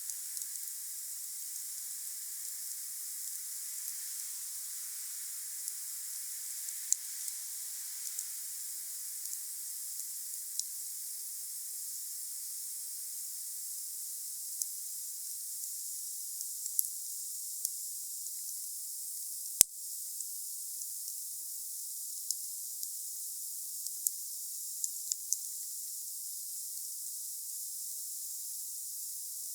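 Wood fire burning with a steady hiss and scattered crackles. One sharp pop a little past halfway is the loudest.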